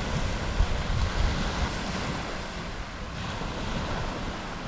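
Surf washing onto the beach, a steady hiss, with wind buffeting the microphone in uneven low gusts.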